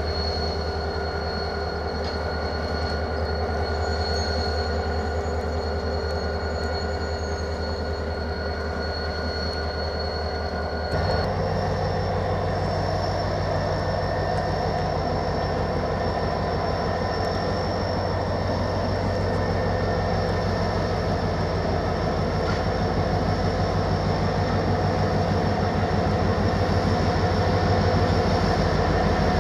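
Renfe class 333 diesel-electric locomotive running as it moves slowly along yard tracks with a train of empty wagons. About eleven seconds in, the engine steps up abruptly to a higher, louder note with its high whine rising in pitch, as the driver opens the throttle, and the sound then grows slowly louder as the locomotive comes closer.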